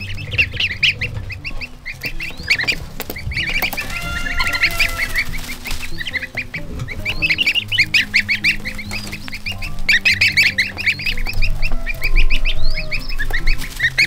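A group of goslings peeping, many short high calls in quick succession that come in waves, busiest in the last few seconds.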